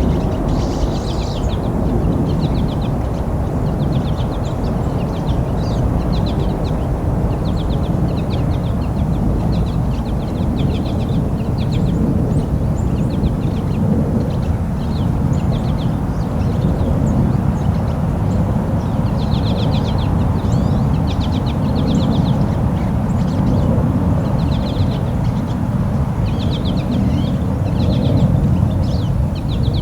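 Small songbirds calling over and over, in short trilled, chattering notes, over a steady low rumble.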